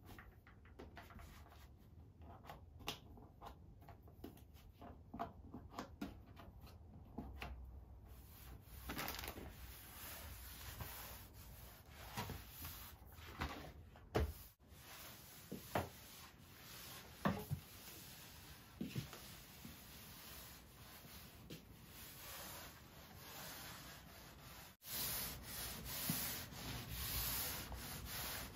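Flat floor mop with a cleaning sheet pushed back and forth over wooden flooring: a soft, repeated rubbing swish, with a few light knocks of the mop head. The first few seconds hold only scattered light clicks and taps before the mopping strokes begin.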